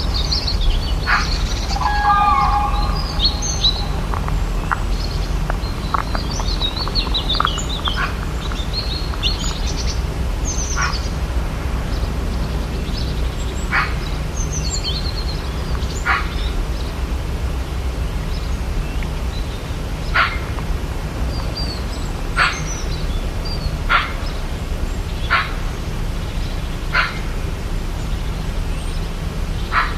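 Rainforest ambience: many birds chirping and calling over a steady low rumble. In the first half there is a busy mix of high chirps and trills. Later, single sharp call notes repeat every couple of seconds.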